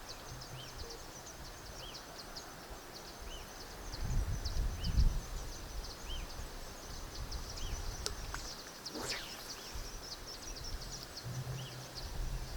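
Riverside outdoor ambience: a bird repeats a short rising-and-falling call about once a second over steady high ticking, like insects. A gust of wind hits the microphone about four seconds in, and a short swish of noise passes near the nine-second mark.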